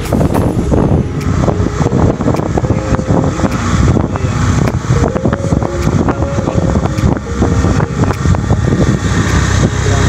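Motorcycle riding along a dirt track, its engine running under loud wind buffeting on the microphone.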